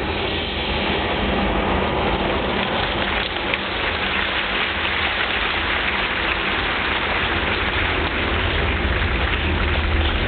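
Theatre audience applauding: a dense, steady patter of many hands clapping.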